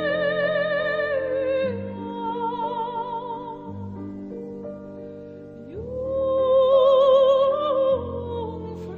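Dramatic background music: a slow melody with strong vibrato over held chords. A long note swells in about six seconds in and is the loudest part.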